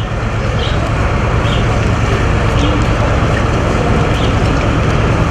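Steady low engine rumble of armoured police vehicles running, under a haze of street noise.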